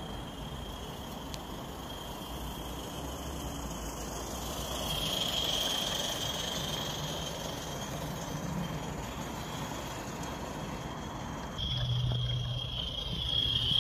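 Coal-fired Accucraft Ragleth live-steam garden-railway locomotive running with its train, growing louder as it passes close about halfway through. A steady high-pitched whine runs alongside.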